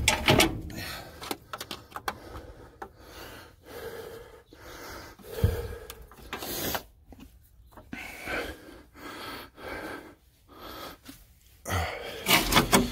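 A man breathing with effort, over scattered clicks and knocks as battery cables are fitted to the terminals, with louder bursts of knocking and rustling near the middle and near the end.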